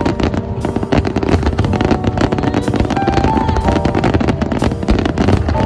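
A fireworks finale, with many shells bursting at once in a dense, unbroken run of bangs and crackles. Music plays a melody over it.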